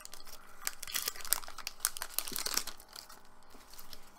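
Foil wrapper of a Pokémon trading card booster pack crinkling and crackling as it is opened by hand, a dense run of crackles for nearly three seconds, then fainter and sparser.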